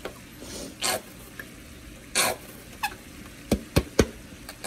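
Handling noise from a plastic ketchup bottle being squeezed over a skillet of ground beef: two short hissy, sputtering bursts, then three sharp clicks close together near the end.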